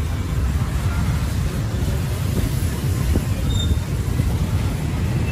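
Steady low rumble of street traffic, an even background noise without speech.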